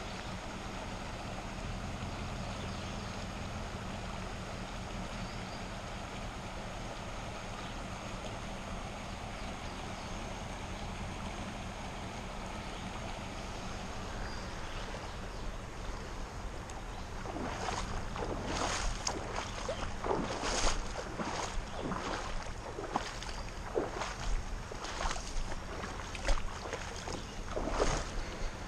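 Steady rush of shallow river water running over rocks. A little past halfway, irregular sharp splashes and knocks begin, several each second, and go on to the end.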